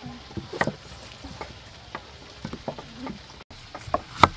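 Kitchen knives cutting vegetables on thick wooden chopping boards: a handful of separate, irregular knocks as the blade strikes the board, the loudest near the end.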